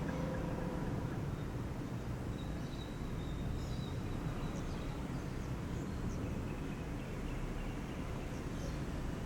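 Steady outdoor background noise, mostly a low rumble, with faint short high chirps, some of them a little after halfway.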